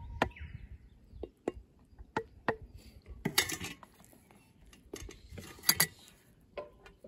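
Wooden rice paddle tapping and scraping against a metal hangō mess tin and metal plates as cooked rice is dished out: scattered light knocks and clinks, with louder clattering scrapes twice.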